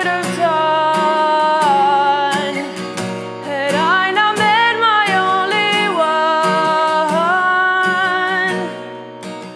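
A woman singing long held notes that rise and fall, over strummed acoustic guitar; the voice stops near the end and the guitar plays on alone.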